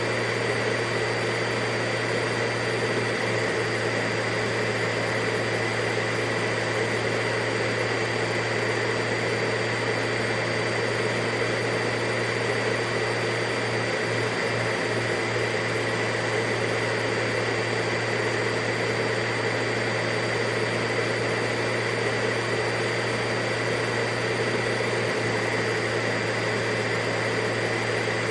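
Vacuum cleaner running at a constant speed: a steady, even whir with a fixed hum and a high whine held at one pitch.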